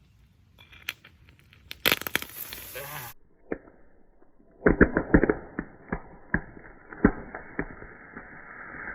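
Molten copper spattering and popping violently as it is poured into a casting mold. Scattered crackles lead into a dense burst of crackling about two seconds in. From about five seconds on comes a run of sharp, loud cracks, closely bunched at first and then more spread out.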